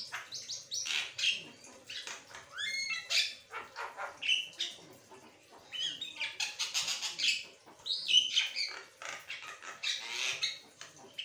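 Javan myna (jalak kebo) singing in a continuous, varied chatter: quick runs of harsh notes mixed with short whistles that sweep up and down, with hardly a pause.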